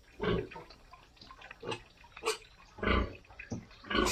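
Large White pigs in a pen giving several short grunts, one every second or so.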